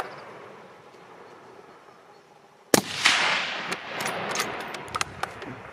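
A single hunting-rifle shot about two and a half seconds in, its report dying away over about a second, followed by a few sharp clicks.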